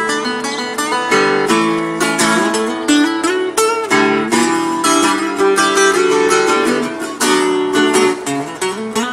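Solo acoustic guitar playing a lively tune, picked notes and strummed chords in quick succession.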